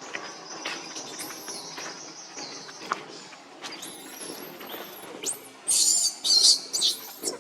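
Baby long-tailed macaque giving thin, high squeals, breaking into a run of loud, shrill screams near the end. A steady high buzz runs under the first couple of seconds.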